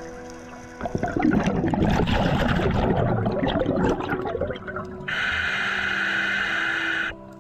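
Scuba diver breathing through a regulator. First comes a crackling burble of exhaled bubbles lasting about three and a half seconds, then a steady hiss of inhalation for about two seconds that cuts off sharply.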